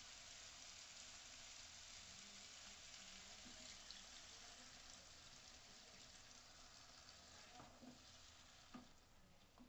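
Onion-tomato masala sizzling faintly in a pan, the sizzle slowly dying down as water is poured in and stirred with a wooden spatula. The spatula knocks against the pan a few times near the end.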